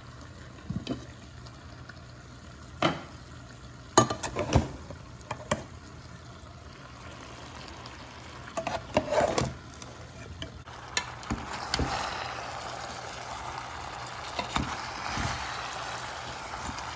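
Cooked tender jackfruit being spooned into a pan of chicken masala and stirred in: scattered knocks of the utensil against the pots, then from about 11 s in a steady sizzle as the mix fries in the pan.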